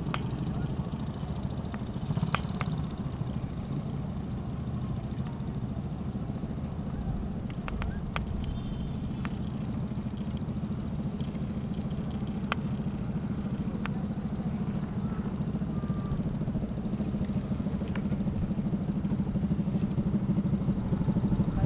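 A small engine running steadily at an even speed, with a few brief clicks or knocks over it.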